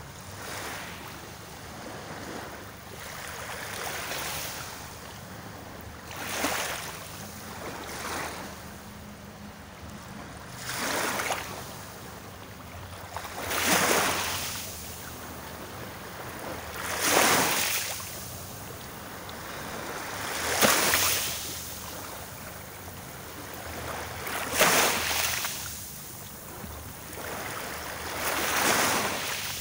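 Small waves breaking and washing onto the shore in a slow rhythm, one swell of surf every three to four seconds over a steady background hiss of water.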